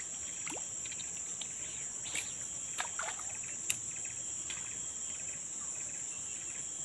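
Insects shrilling steadily in a high, unbroken drone, with a few short sharp clicks, the sharpest about three and a half seconds in.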